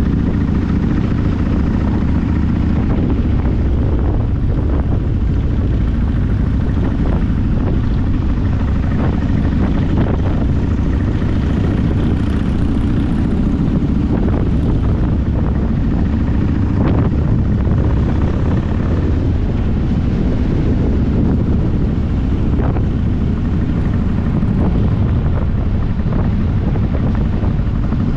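Steady, loud low rumble of a vehicle on the move, with wind noise on the microphone.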